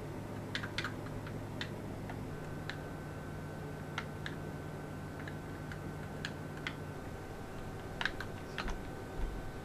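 Scattered light clicks and taps at an uneven pace, bunched a little near the start and near the end, over a faint steady hum.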